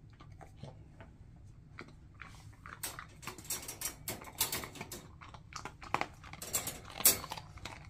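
Cocker spaniel chewing a crunchy dog treat: irregular crunches, several a second, starting about two seconds in and getting louder towards the end.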